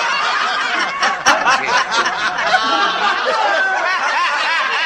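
Studio audience laughing steadily, many voices at once.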